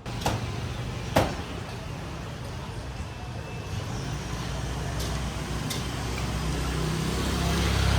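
Road traffic: a steady low engine rumble with tyre and road noise that grows gradually louder as a vehicle draws near toward the end, with a sharp click about a second in.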